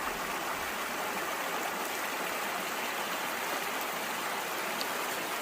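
Steady rushing of a flowing stream, an even wash of water noise with no breaks.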